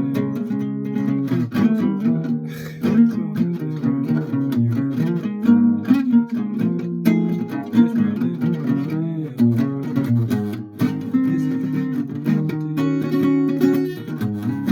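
A guitar being played, a steady run of plucked notes and strummed chords.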